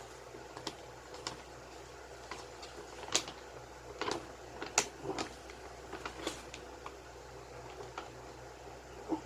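Starter-deck contents being handled by hand: scattered light clicks, taps and rustles of paper and card, at an uneven pace, the sharpest a little after three seconds and near five seconds.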